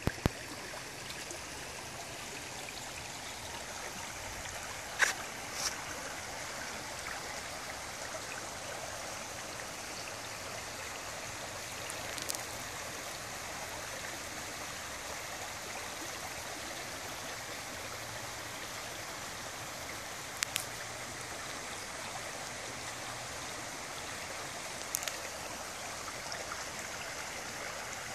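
Floodwater running steadily through woodland like a shallow stream, an even rushing of moving water. Several sharp snaps break through it, the loudest about five seconds in.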